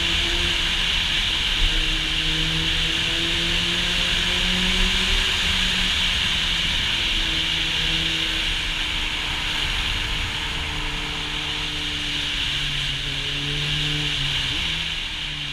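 Kawasaki Z800e's inline-four engine with an Akrapovic exhaust, running under way. Its note climbs slowly, holds, then dips near the end. Heavy wind noise on the microphone from riding speed sits over the engine.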